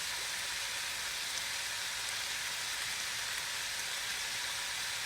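Chopped vegetables and chicken sizzling steadily in a frying pan, an even hiss with no breaks.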